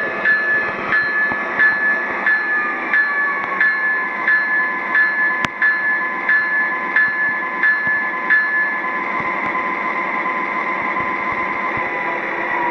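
Sound system of an MTH O-gauge GE ES44AC model diesel locomotive: a bell rings about one and a half strokes a second and stops about nine seconds in, over the recorded diesel engine running with a whine that falls in pitch. A single sharp click comes at about the middle.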